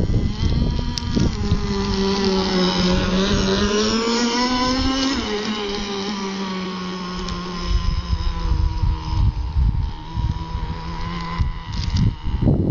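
Engine of a CEN Racing Gray Thunder GP radio-controlled boat running with a high whine that climbs slowly in pitch, drops suddenly about five seconds in, then holds lower and steadier. It stops a little before the end, where wind noise on the microphone takes over.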